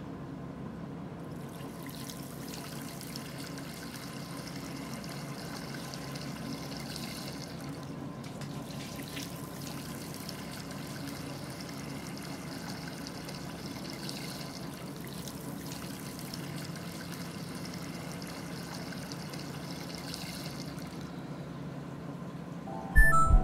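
Water running from a bathroom sink tap, a steady hiss that starts about a second in and stops shortly before the end, over a low steady hum.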